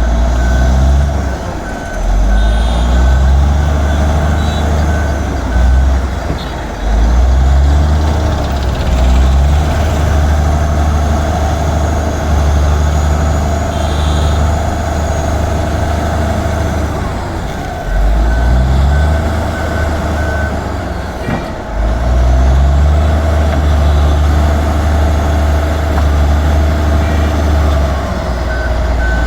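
Bulldozer's diesel engine running hard, its pitch rising and falling several times as it works. A reversing alarm beeps in a steady series near the start, again about two-thirds of the way through, and at the end.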